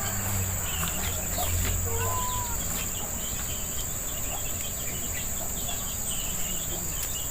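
Steady high-pitched drone of an insect chorus, with scattered short bird chirps over it.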